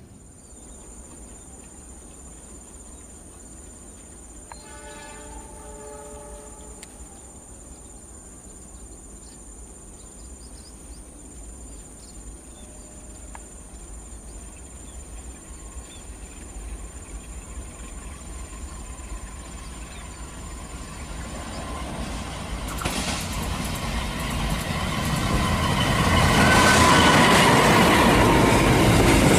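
CC206 diesel-electric locomotive sounding its horn once, faint and distant, for about two seconds roughly five seconds in. The train then approaches, its engine and wheel noise growing steadily louder until it passes close by in the last few seconds.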